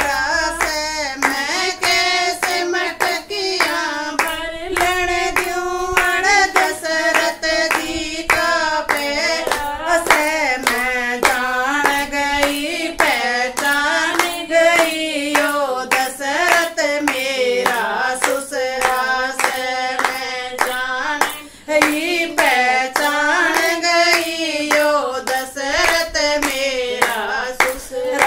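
Women singing a Haryanvi folk bhajan together, keeping time with regular hand claps.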